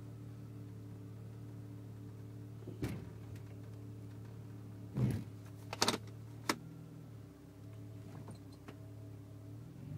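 Mercedes-Benz W210 E320 engine idling steadily, heard from inside the cabin, with a few sharp clicks and knocks midway.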